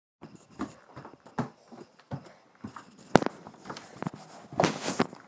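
Footsteps walking across an indoor floor, about one step every two-thirds of a second, with a sharper knock about three seconds in and a denser clattering, rustling stretch near the end.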